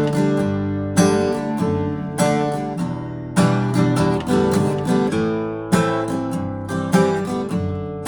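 A 2000 Gibson J-45 acoustic guitar strummed and picked in chords, a new attack about once a second with the notes left ringing between.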